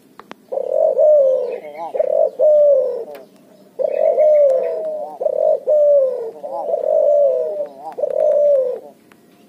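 Hybrid dove, a cross of Barbary dove and spotted dove, cooing vigorously in two long series of low coos broken by quavering notes; the second series, starting about 4 seconds in, runs longer than the first.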